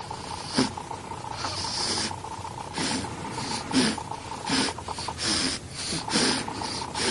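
A ten-day-old newborn snoring in sleep: short, noisy breaths with a light rasp, about one a second at an uneven pace.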